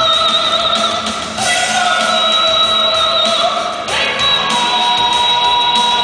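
A woman singing into a microphone over backing music, in long held notes.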